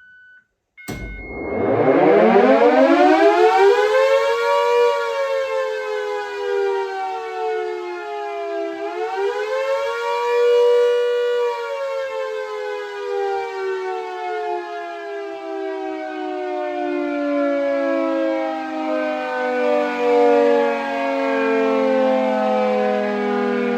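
Castle Castings three-phase electric siren starting up after a short electronic beep and click: it winds up quickly to full pitch, sags, is powered again and rises once more about nine seconds in, then winds down, its pitch falling slowly and steadily as the rotor coasts.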